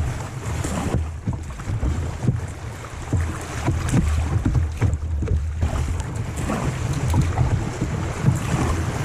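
Rushing river rapids, with water splashing repeatedly against the kayak and wind buffeting the microphone in a deep rumble.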